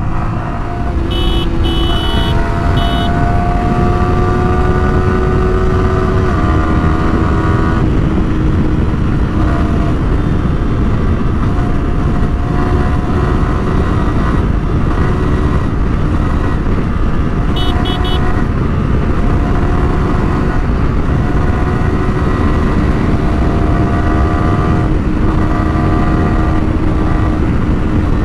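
Yamaha R15's single-cylinder engine accelerating hard, its pitch rising and dropping back at two upshifts in the first eight seconds, then holding high at about 110–115 km/h under heavy wind rush. A horn beeps in quick short bursts near the start and again about eighteen seconds in.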